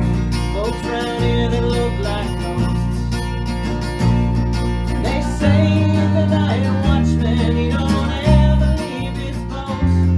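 Acoustic band music: strummed acoustic guitar chords over a deep bass line that changes notes several times in the second half, with a wavering melody line above.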